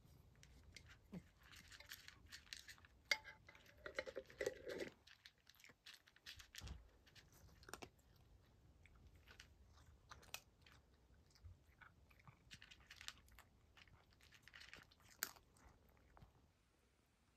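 A cat crunching dry kibble from a plastic dish: soft, irregular crunches, busiest and loudest about three to five seconds in.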